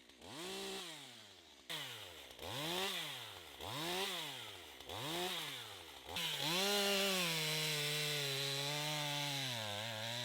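Stihl two-stroke chainsaw revved in five short blips, each rising and falling in pitch, about one a second, while the log is marked at length intervals. About six seconds in it is held at high revs, the pitch sagging slightly near the end.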